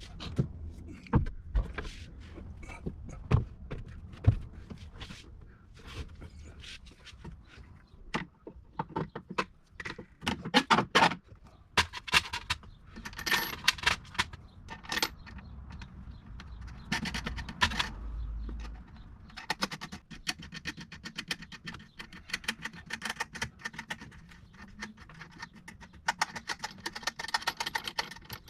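Hand tools and metal battery-box hardware being handled, with scattered clinks and knocks, then a ratchet wrench clicking rapidly and steadily through the last third, as nuts are run down.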